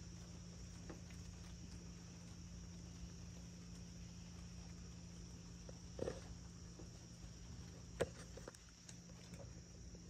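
Faint night ambience: a steady high drone of insects over a low steady hum, with a few soft knocks and ticks, the clearest about six and eight seconds in.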